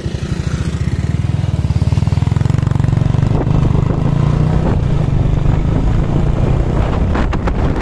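Motorcycle engine running with a fast, steady putter, picking up and growing louder about a second in as the bike moves off along the street.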